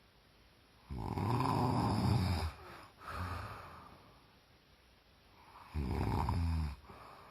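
A woman snoring with a deep, rasping snore likened to a wild boar's: a long snore about a second in, a softer breath out after it, then a shorter snore near the end.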